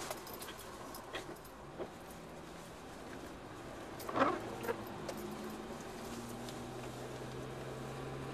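Car moving slowly on a snowy road: a low, steady engine hum with faint clicks, and one brief louder sound about four seconds in.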